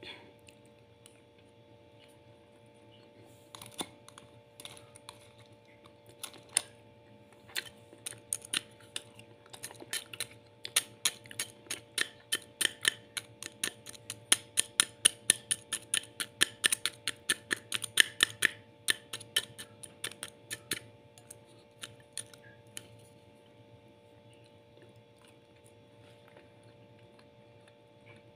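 Plastic spoon clicking against a plate while rice and chicken are stirred: scattered taps that thicken into a quick run of about three to four a second in the middle, then thin out again, over a faint steady hum.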